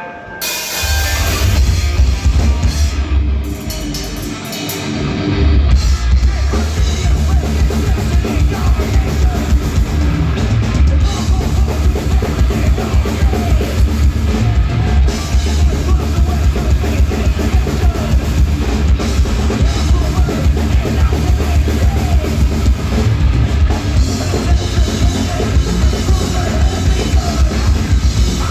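Thrash metal band playing live and loud: distorted electric guitars over fast drumming with heavy bass drum. The band comes in about a second in, thins out briefly around four seconds, then drives on at a fast, even beat.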